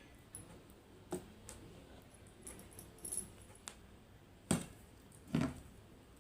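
Close-miked eating sounds: scattered clicks and taps of the meal being handled and eaten, with the two loudest about four and a half and five and a half seconds in.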